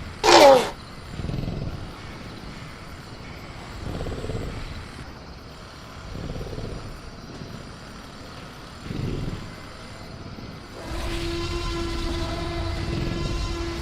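Velociraptor sound-effect screech, a short loud shriek falling in pitch right at the start, followed by quieter low growling swells every few seconds over a steady insect hum. About eleven seconds in, a steady machine hum with a held low tone comes in and stays.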